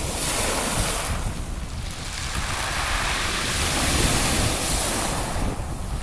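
Sea waves breaking and foaming up a pebble beach, two surges of hiss, the second longer, about two seconds in. Wind buffets the microphone throughout with a low rumble.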